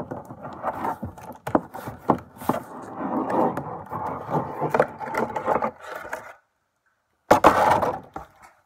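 Cardboard toy box being handled and opened close to the microphone: cardboard scraping and rubbing, with scattered clicks and knocks. The sound cuts out completely for about a second, then comes back as a loud rustle near the end.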